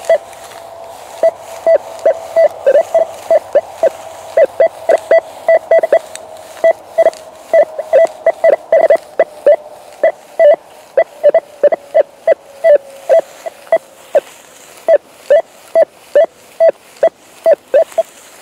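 Rutus Alter 71 metal detector giving a rapid, irregular run of short beeps, all of one pitch, about three a second as the coil sweeps over grass, with a faint steady tone beneath them that fades out about halfway through.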